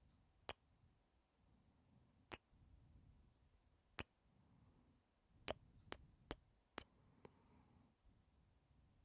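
Faint, close-miked kiss smacks: about eight short lip clicks, four of them in a quick run a little past the middle. Under them are faint, slow swelling breaths.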